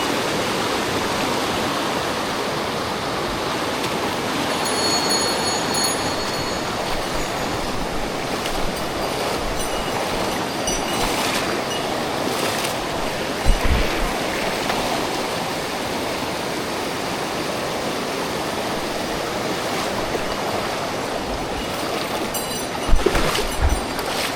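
Mountain stream water rushing steadily, with a few dull knocks about halfway through and again near the end.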